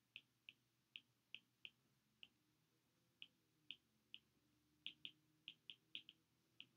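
Faint, irregularly spaced clicks of a stylus tip tapping on a tablet's glass screen during handwriting, about sixteen in all, some coming in quick pairs.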